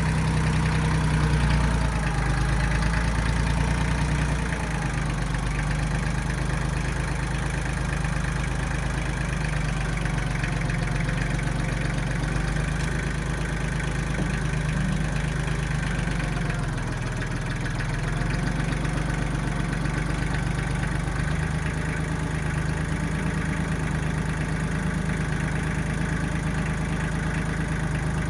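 Diesel engine of a 1995 Kubota backhoe running steadily at a low, even speed, easing slightly about four seconds in.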